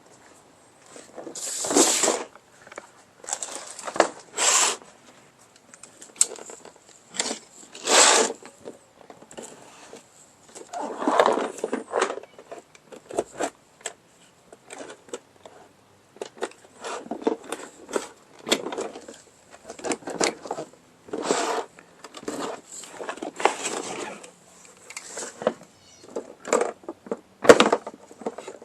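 Hands unpacking a box: irregular rustling and crackling of packing material and parts being handled, with a few sharp knocks, the loudest near the end.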